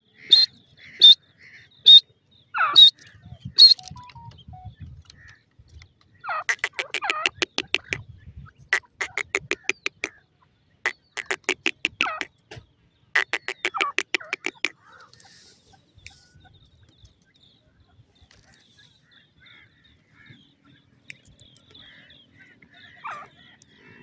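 Grey francolin calling. First comes a run of about five sharp, high chirps roughly a second apart, then four rapid rattling call series of about two seconds each, with short gaps between them.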